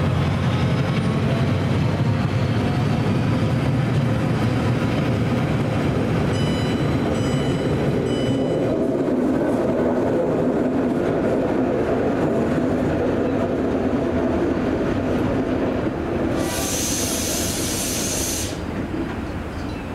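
A DRS Class 68 diesel locomotive passes under power hauling container wagons, its engine hum giving way to the rumble and clatter of the wagons' wheels on curved track. A brief high wheel squeal comes about seven seconds in, and near the end a hiss of about two seconds as the rear Class 68 draws level.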